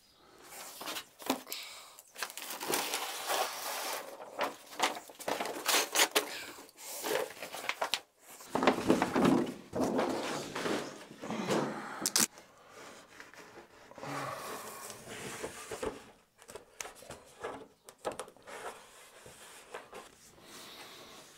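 A large sheet of paper rustling and crinkling in irregular bursts as it is unrolled and pressed flat against a wall, with sharp rips of adhesive tape pulled off the roll to fix it.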